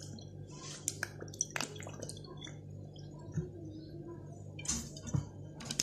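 Worcestershire sauce dripping and splashing from a glass bottle onto raw chicken wings in a bowl, faint, with a few small clicks, over a steady low hum.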